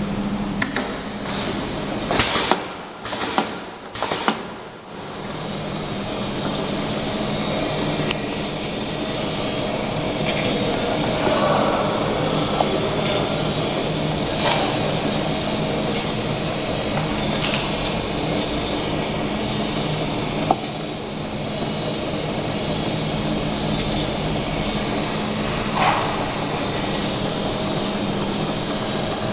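Automatic box-sealing labeling machine running with a steady mechanical hum. A cluster of loud knocks comes in the first few seconds, then occasional single clicks as boxes pass along the conveyor and through the labeller.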